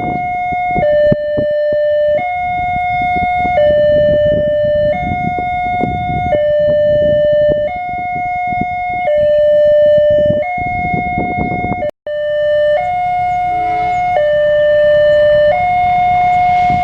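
Railway level-crossing warning siren sounding a two-tone alternating wail, switching between a higher and a lower tone about every second and a half. A heavy rumbling noise runs beneath it until a brief dropout about twelve seconds in, after which the siren continues over a quieter background.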